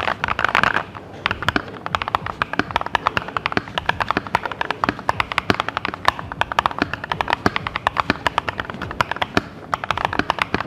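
Fast typing on a Keychron V1 mechanical keyboard with Gateron G Pro Brown tactile switches, in a tray-mount plastic case: a quick, dense run of keystrokes. The sound leans deep and is even from key to key.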